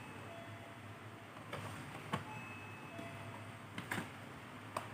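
Hard-drive caddy being pushed into a laptop's optical drive bay: a few light, separate clicks and knocks of plastic and metal parts, about four over a few seconds.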